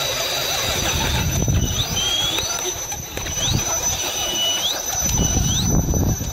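Sensorless brushless electric motors of a four-motor RC rock crawler whining as the throttle is worked. About five short whines each rise in pitch and cut off, over a steady high-pitched whine and a low rumble.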